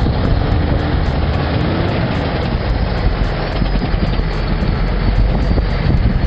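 A heavy vehicle's engine running steadily and loudly, with a strong low rumble.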